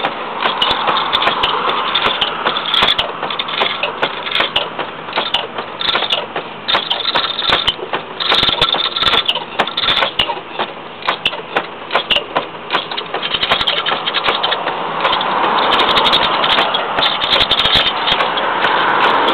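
Wood-turning gouge cutting the outside of a wooden bowl spinning on a treadle lathe: a steady scraping hiss of light cuts, with frequent clicks and rattles. The cutting grows louder in the last few seconds.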